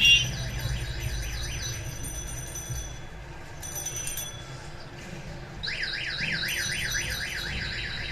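An electronic alarm-like warbling tone sweeping rapidly up and down, about four or five sweeps a second. It is faint at first and loudest for the last couple of seconds, over a steady low hum.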